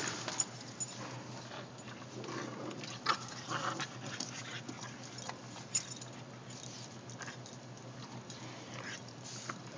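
Three small bulldog-type dogs (a Boston terrier, an English bulldog and a bulldog–shih tzu mix) playing tug over a rope toy: short, irregular dog play noises with scuffling and a few sharp clicks, over a steady low hum.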